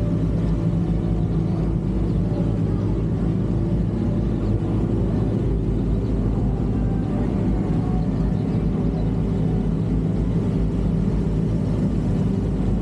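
Sport motorcycle engines idling, a steady low rumble with an even hum that does not change.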